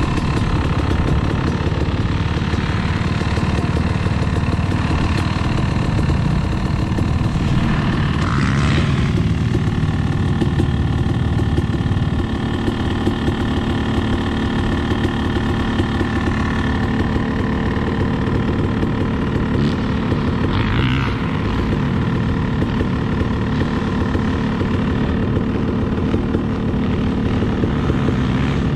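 Dirt bike engine idling steadily close by, with two brief swells of hiss about nine and twenty-one seconds in.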